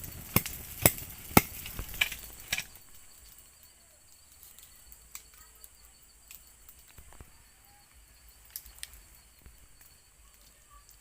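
A series of about five sharp clicks or knocks in the first few seconds, then sparse faint clicks, over the steady high drone of crickets at night.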